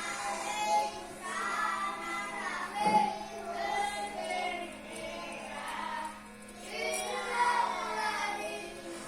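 Background music: a song with high singing voices, over a faint steady hum.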